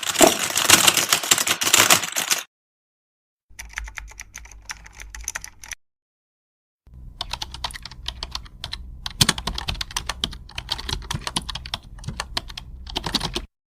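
Computer keyboard typing, in three separate takes with silent gaps between: a loud, dense run of key clicks for about two and a half seconds, then a quieter, shorter run with a low hum underneath, then a longer run of typing lasting about six seconds.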